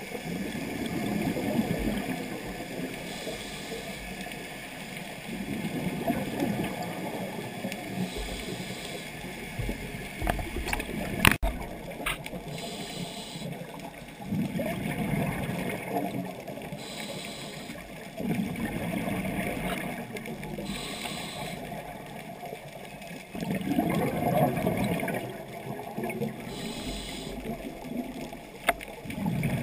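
Scuba diver breathing through a regulator underwater: a short hiss on each inhale, then a longer gurgling rush of exhaled bubbles, repeating about every five seconds. A sharp click about eleven seconds in.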